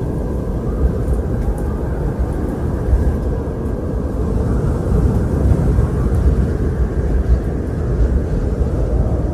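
Strong wind blowing steadily, its sound mostly a low rumble that swells a little in gusts.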